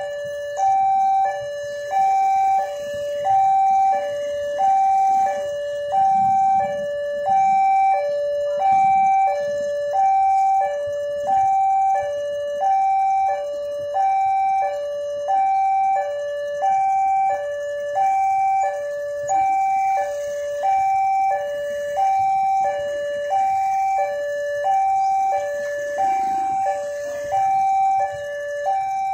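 Level-crossing warning alarm sounding its electronic two-tone signal, a higher and a lower note alternating about every half second, steady and unbroken: the crossing is active for an approaching train.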